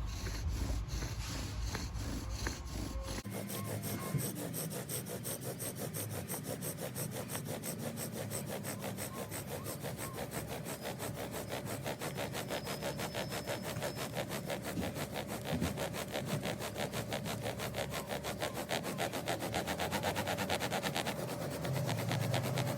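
Bow drill in use: a farkleberry spindle is bowed fast back and forth in a farkleberry hearth board to build an ember, in a steady rubbing rhythm that starts about three seconds in and stops near the end. A low rumble runs under the first three seconds.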